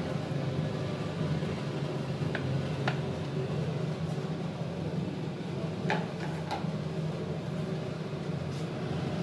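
Steady low mechanical hum in a kitchen, with a few light clicks of a bowl and spatula against a frying pan, two about two and a half to three seconds in and two more about six seconds in.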